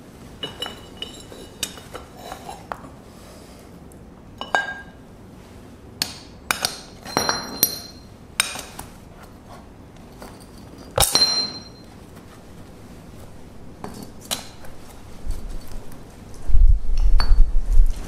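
Steel tongs clinking against a freshly cast brass ingot: about a dozen irregular sharp metallic clinks with short high ringing, the loudest about 11 seconds in. Near the end come heavier, duller knocks and scraping as the ingot is handled onto a concrete block.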